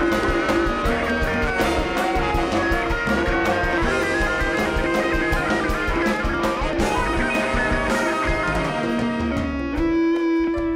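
Live rock band playing, an electric guitar lead over a drum kit and the rest of the band. Near the end the drums stop and one held note rings on.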